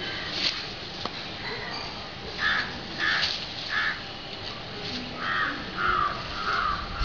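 A series of short, harsh animal calls, three evenly spaced and then, after a pause, four more.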